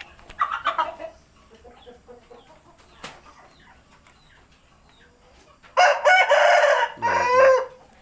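Parrot-beak Indian Aseel rooster crowing once, loud and hoarse, for about two seconds starting about six seconds in, breaking into a falling note at the end: the full crow of a young cock now come of age. A shorter, quieter call comes about half a second in.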